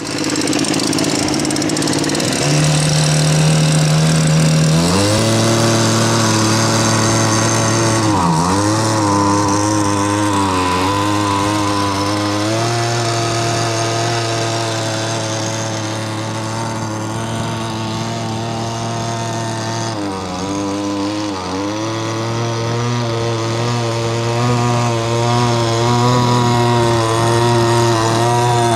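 Small two-stroke Poulan Weed Eater string-trimmer engine driving a radio-controlled mini jet boat, buzzing at high revs. It runs at a lower note for the first few seconds, steps up about five seconds in, and twice drops briefly in pitch and comes back as the throttle eases off and reopens. The carburettor is not yet fine-tuned.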